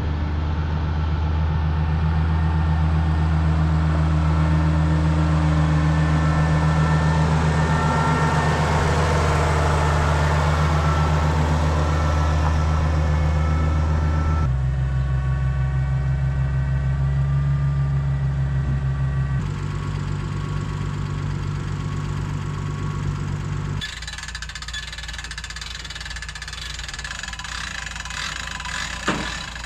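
Tractor engine running steadily at a constant speed. Its note changes abruptly three times, and a short knock comes near the end.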